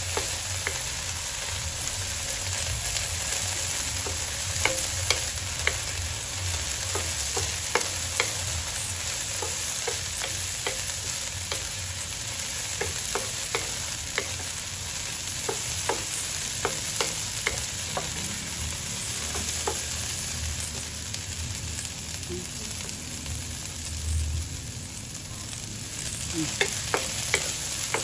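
Beans sizzling in hot oil in a pan while being stir-fried, with a steady hiss and frequent sharp clicks of the spatula striking the pan.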